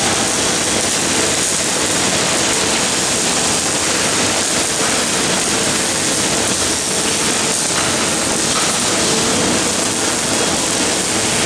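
MIG welding arc from a CNC gantry welding machine, running steadily as an even hiss.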